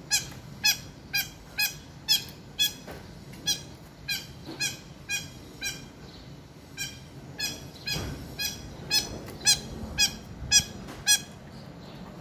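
Long-tailed shrike (cendet) calling: a long series of short, pitched notes, each sliding downward, about two a second, with a pause of about a second near the middle. The last few notes are the loudest.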